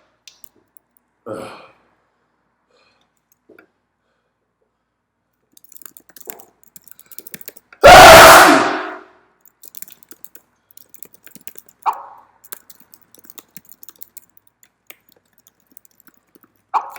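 One loud human sneeze about halfway through, ringing in a bare, empty room, with faint crackly, sniffly breathing just before it and short breath sounds near the start and a few seconds after. The sneezing is set off by sniffed chhinkni, a sneeze-inducing snuff.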